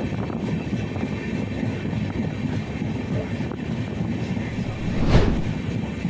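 Indian Railways express train running on the track, heard from aboard: a steady rumble of wheels on rails, with one louder clunk about five seconds in.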